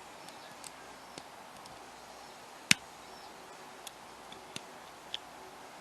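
Lock pick and tension wrench working a hand-held pin tumbler challenge lock: a handful of light metallic ticks scattered through, with one sharper click about 2.7 s in.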